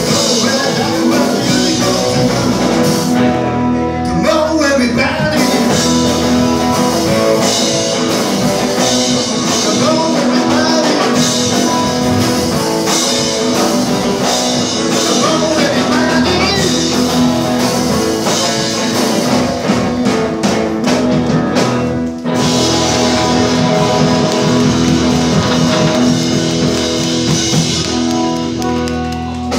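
Live rock and roll band playing loudly: drum kit, upright double bass and electric guitars, with a singer's voice. The music drops out very briefly about two-thirds of the way through.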